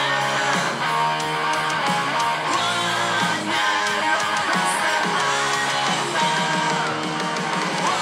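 Background music: a song driven by strummed guitars over a steady bass line.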